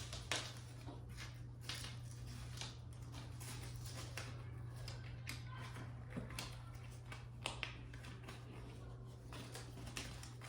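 Scattered rustles and clicks of hands working a Velcro strap around a roof crossbar's quick-release latch, over a steady low hum.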